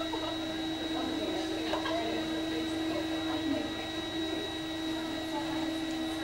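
A steady, even hum with a thin high whine, over the faint murmur of an outdoor crowd.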